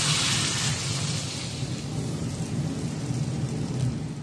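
Small whole fish sizzling in hot oil in a wok, a steady hiss that is strongest in the first second, with a low steady hum underneath.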